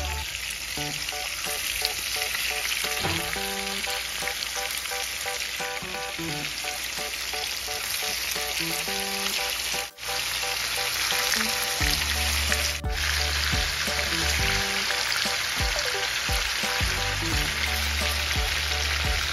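Whiting fillets frying in a skillet of hot oil: a steady, crackling sizzle that breaks off for an instant about halfway. A low tune plays underneath.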